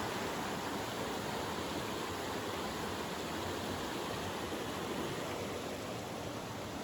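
Creek running high and fast after heavy rain, a steady rush of water.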